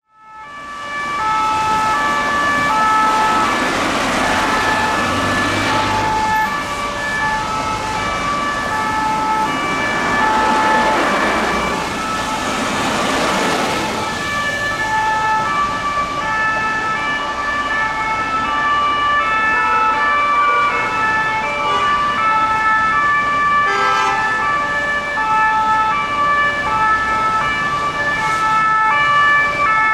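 Two-tone sirens of fire turntable ladder trucks, stepping back and forth between a high and a low note. More than one siren sounds out of step with the others, over city traffic noise. The sound fades in at the start.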